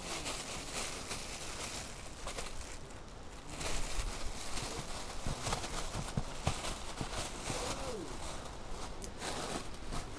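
Light handling noise: scattered small rustles and clicks over a steady outdoor background.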